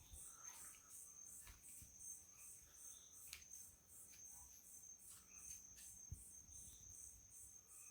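Faint night chorus of crickets: a steady high-pitched trill with a pulsing chirp about twice a second on top. Scattered faint short calls from other night creatures come through now and then.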